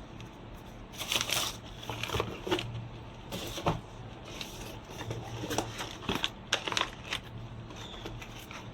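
A packet of 6mm airsoft BBs being handled: irregular crinkling and clicking, loudest in the middle seconds, over a faint low steady hum.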